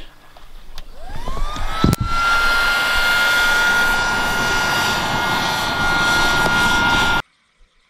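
A small high-speed motor spins up with a rising whine and then runs steadily at a constant high pitch over a loud rushing noise, with a single knock as it gets going. The sound cuts off abruptly near the end.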